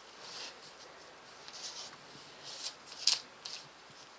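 Paintbrush brushing wet paint onto watercolor paper in a few soft strokes, with one sharp tap about three seconds in.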